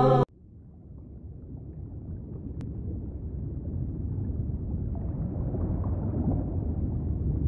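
A chanted vocal intro cuts off abruptly just after the start. A low, steady rushing rumble then fades in gradually and grows louder through the rest.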